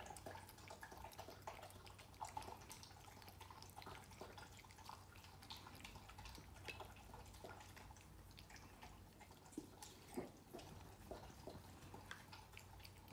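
A cat and a dog eating from their bowls: faint, irregular wet clicks and smacks of chewing and licking food, with a couple of sharper clicks about ten seconds in.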